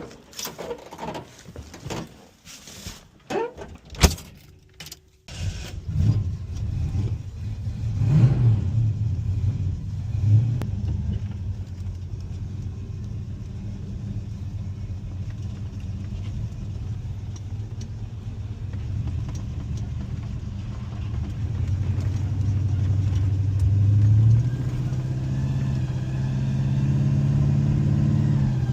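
A few clicks and knocks, then about five seconds in a car engine starts running with a steady low note. It revs up briefly a couple of times, then runs on and grows a little louder near the end.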